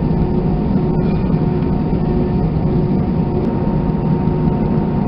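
Airbus A319 cabin during taxi after landing: steady low rumble of the jet engines at idle and the cabin air system, with a few faint held tones over it.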